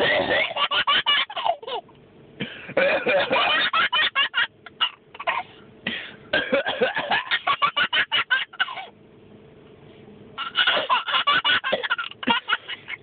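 A baby boy laughing hard in repeated belly-laugh bursts, set off by an adult's coughs mixed in between. There is a short lull about nine seconds in, then the laughter starts again.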